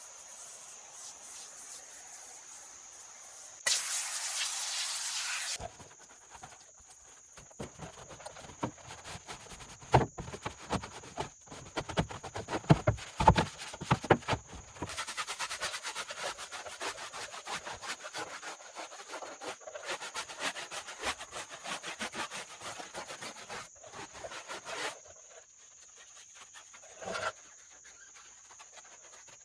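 A wheel and tire being cleaned: a hiss of spray for about two seconds, then a brush scrubbing in fast strokes with a few sharp knocks, and a brief hiss near the end.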